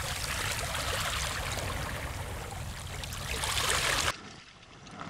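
Sea water washing and trickling over a rocky shoreline, a steady rush that cuts off suddenly about four seconds in, leaving only faint water sound.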